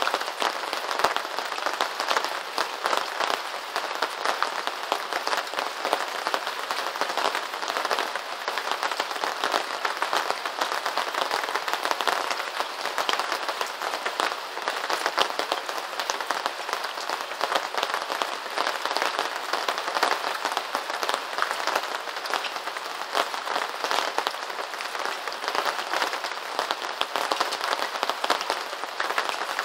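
Steady rain pattering: a dense, even crackle of many small drops with no let-up.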